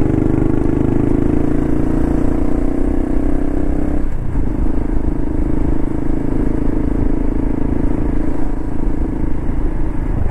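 Honda Cross Cub 110's single-cylinder engine running under way, its pitch climbing for about four seconds. It dips briefly at a gear change, then holds steady while cruising.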